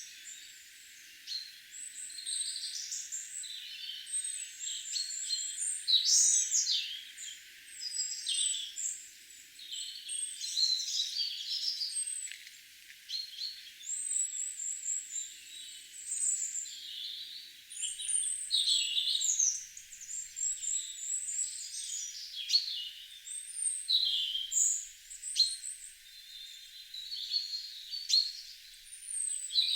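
Garden songbirds singing and chirping, one high phrase after another with several birds overlapping, many phrases made of quick runs of repeated notes. The recording has no low sound at all, only the high birdsong.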